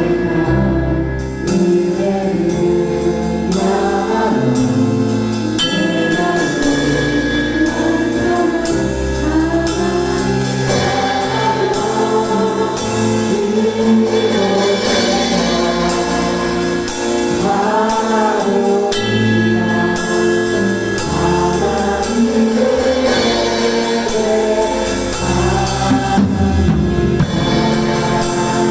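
Korean worship song with choir singing over a band, a drum kit playing along on a steady beat.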